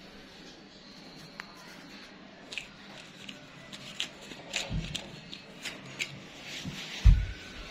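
Handling noise: scattered light clicks and taps, with two low thumps about five and seven seconds in, the second the loudest.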